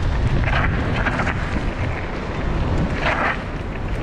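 Wind rushing over the microphone of a moving mountain bike, over the rumble of its tyres rolling across loose gravel and grit. Short crunchy bursts come about half a second, one second and three seconds in.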